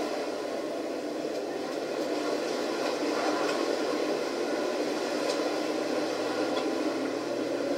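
Steady rumble and rushing of a Hurtigruten coastal ship underway, heard through a television speaker. A lower hum joins about six seconds in.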